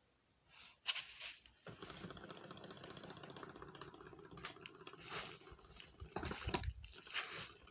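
Small DC motor of a homemade table fan with a plastic-bottle propeller, starting up after a few clicks about a second and a half in and then running with a steady whir. Several short rustling or knocking noises from handling come over it near the end.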